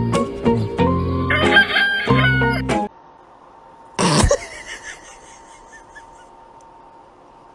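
Background music with a rooster crowing over it. The music cuts off suddenly, and about a second later comes one short, loud animal call, then a faint steady hum.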